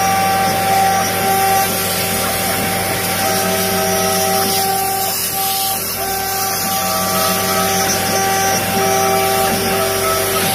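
CNC router spindle and bit running and cutting out the letters of a sign: a steady whine of several pitched tones over a hissing cutting noise, with some higher tones coming and going.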